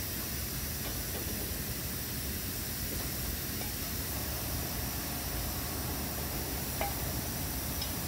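Steady hiss, with a few faint clinks as clay pots are set down onto the metal rods of a kiln rack.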